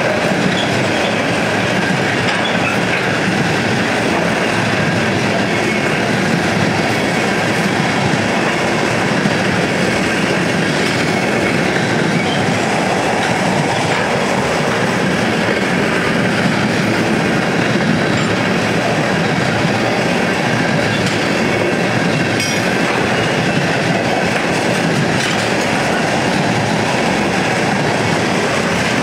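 Empty ethanol tank cars of a freight train rolling past: the steady rumble and clatter of steel wheels on the rails.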